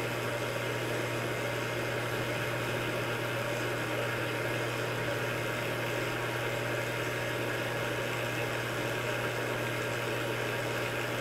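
Steady machine hum: a constant low drone with an even hiss over it, unchanging throughout.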